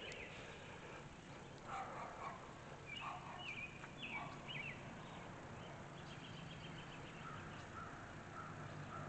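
Birds calling faintly: short chirps that drop in pitch, repeated several times, lower rough calls near two and four seconds in, and a quick trill of ticks around six seconds in.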